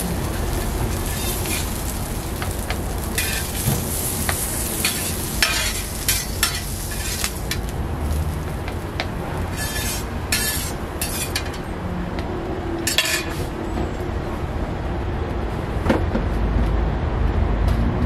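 Food sizzling on a flat-top griddle while a metal spatula scrapes and taps across the steel, scooping fried sausage slices, bean sprouts and egg into a paper cup. A low rumble builds near the end.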